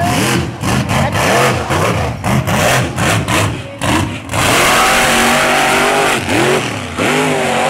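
Mega truck's engine revving hard, its pitch surging up and down with repeated throttle stabs, then held steady at full throttle for about a second and a half around the middle.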